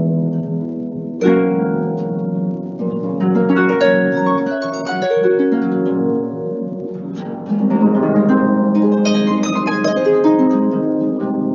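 Solo concert harp playing: plucked notes and chords that ring on and overlap as they fade, with strong fresh chords about a second in and again in the second half.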